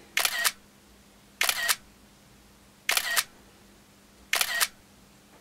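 Smartphone camera shutter sound, one quick double click per photo, taken four times at an even pace about a second and a half apart.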